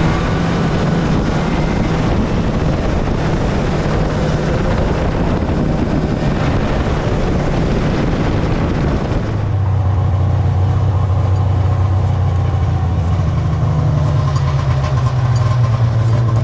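Motor vehicle engine running steadily while driving, a low hum under heavy rushing road and wind noise. About nine seconds in the rushing noise drops away and the engine's steady hum stands out more clearly.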